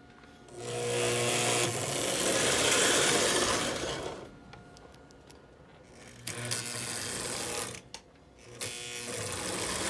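American Flyer #1680 tinplate 2-6-4 electric toy locomotive running fast around a small loop of track, its motor and gears whirring and humming with wheels rattling on the rails. The sound swells and fades three times as it laps past, its motor and wheels freshly oiled.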